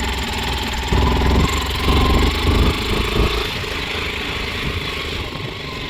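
Motorcycle running while ridden over a rough, cracked dirt road, with a steady noisy rumble that surges about a second and two seconds in.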